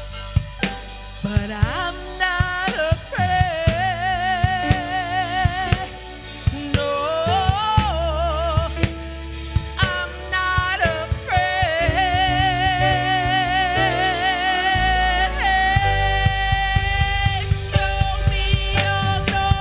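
Live gospel worship music: a solo singer holds long notes with a wide vibrato and slides through melodic runs, over sustained keyboard chords, bass and a drum kit with percussion.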